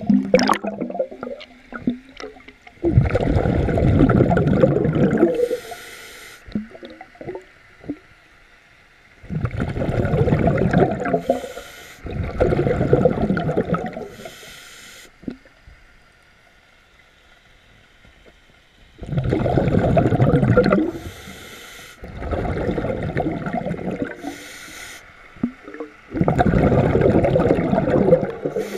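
Diver breathing underwater through a breathing regulator: six long bubbling exhalations, most followed by a short hissing inhalation, with a pause of a few seconds in the middle.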